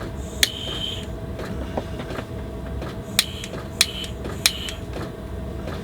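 Butane soldering torch's piezo igniter clicking four times as it is tried with the hot-air attachment fitted, failing to light: one click, then three in quick succession about three seconds later, each followed by a short high ring. A steady drone from a diesel heater runs underneath.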